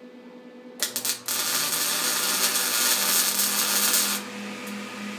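MIG welding arc: a few sputtering pops as it is struck about a second in, then a steady crackling sizzle that stops abruptly about four seconds in. Under it the Plymovent Portable High Vacuum fume extractor's motor starts as the arc is struck, switched on automatically by the arc in auto mode, and keeps humming with a slight pulsing after the weld stops.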